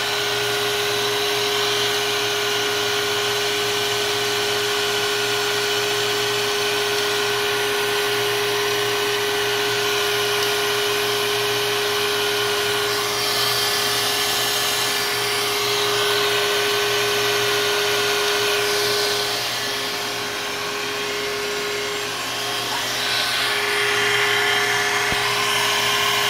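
Milling machine spindle running with a steady whine as an end mill cuts a flat along a pen cap under power feed. The higher cutting hiss swells for a few seconds about halfway through and again near the end.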